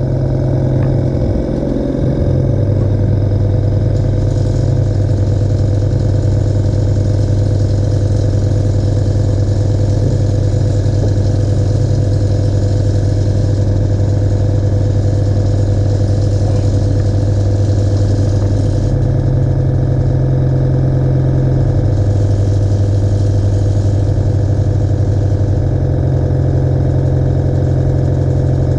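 U-Star U603 twin-pump airbrush compressor running steadily with a low hum as it fills its air tank, the pressure climbing past 40 toward its automatic cut-off at 60.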